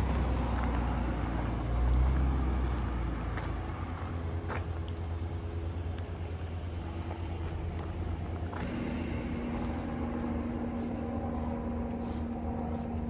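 An engine running: a low rumble that swells briefly about two seconds in, then settles into a steady drone, with a hum tone added partway through.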